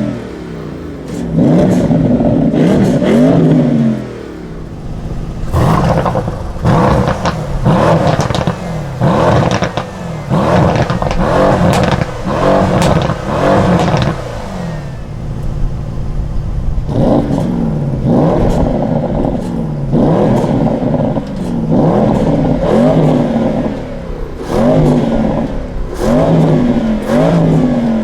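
A 4.0-litre twin-turbo V8's sports exhaust revved over and over, each rev rising and falling over about two seconds. Through the middle stretch the revs come quicker, with a run of sharp pops and crackles on the overrun.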